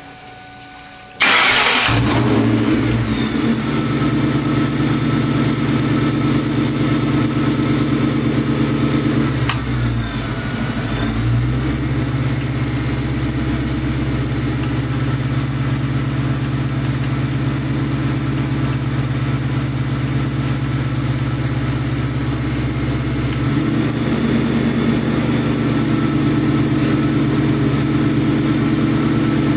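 Ford Mustang GT V8 engine starting about a second in, then idling, with a steady high-pitched, rapidly pulsing whine over the engine. The engine note steps up about 23 seconds in. The owner suspects the A/C compressor of making this noise, since new idler pulleys and a new alternator did not cure it.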